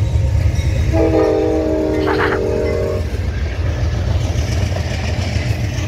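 Amtrak passenger locomotive's horn sounding one blast of about two seconds, several notes held together, starting about a second in. Under it runs a steady low rumble as the train passes close by.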